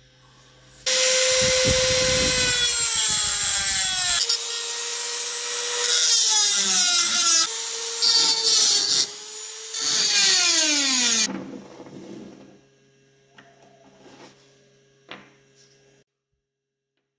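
Electric power tool motor starting about a second in and running with a steady whine, its pitch dipping and recovering several times, then winding down and stopping about eleven seconds in. A few light clicks follow.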